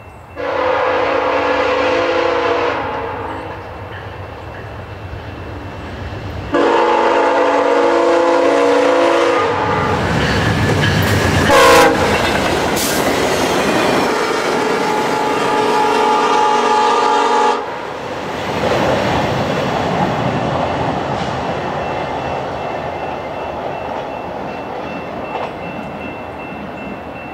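A VIA Rail GE P42DC locomotive passes at about 68 mph, sounding its horn in long blasts; the last blast is held through the pass, which is loudest about twelve seconds in. Then comes the rushing and rail clatter of the coaches going by, slowly fading as the train moves away.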